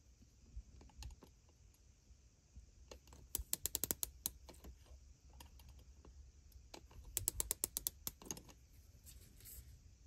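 Digital micrometer's ratchet thimble clicking in two quick runs of about eight to ten clicks each, a few seconds apart, as the spindle is closed down on a rifle gas tube to measure its diameter. The ratchet slipping is the sign that the spindle has seated on the tube at measuring pressure. Faint handling ticks fall between the runs.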